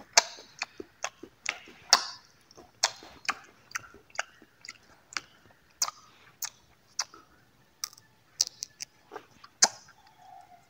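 Close-up chewing of dry fruit: a steady series of crisp, irregular crunches, about two a second.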